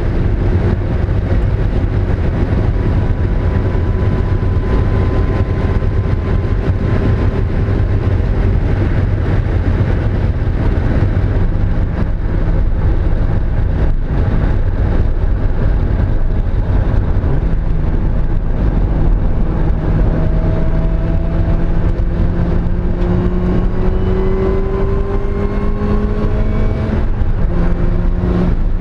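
Mazda Miata's four-cylinder engine pulling hard under load at track speed, over heavy road and wind rumble. The engine note climbs steadily through the second half, then drops suddenly near the end at a gearshift. The engine is misfiring on cylinder 2.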